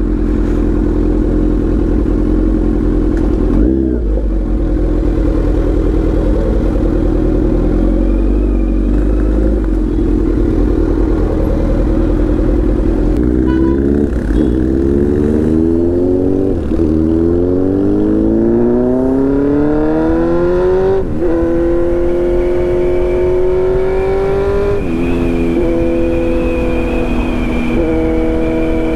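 Kawasaki Z900's inline-four engine through a full titanium Arrow exhaust, running steadily at first. About halfway through it accelerates hard through the gears: a rising pitch broken by three quick upshifts, then a high steady note that eases off near the end.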